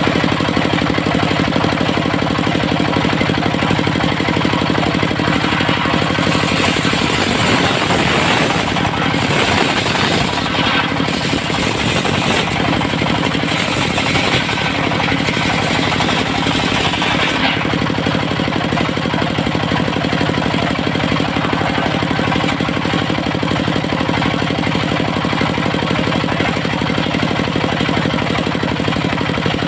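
Diesel engine driving a portable circular sawmill, running steadily with a knocking beat. From about six seconds in, the saw blade cuts through dry teak with a rising hiss, which stops suddenly at about seventeen seconds while the engine keeps running.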